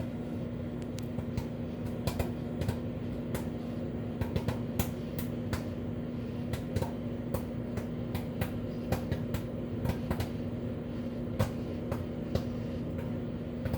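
Microwave oven running with a steady hum while popcorn kernels pop inside a fabric popcorn bag, sharp irregular pops about one or two a second: the late, slowing stage of popping near the end of the cycle.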